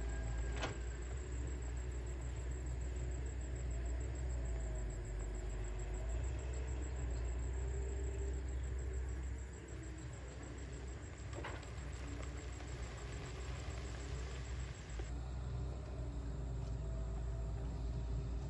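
Distant hydraulic excavator working, its diesel engine giving a steady low rumble, with a sharp clank just after the start and another about eleven seconds in.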